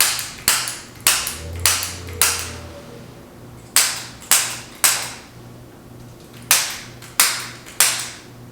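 Sharp snapping clicks from a spring-loaded chiropractic adjusting instrument fired at the pelvis. They come in quick runs of about two a second: five, then three, then three.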